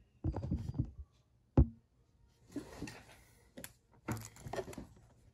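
Small plastic parts clicking and knocking as a toy monster truck's windshield piece is handled and pressed onto its chassis. A sharp knock comes about a second and a half in, followed by lighter scattered clicks and rustles.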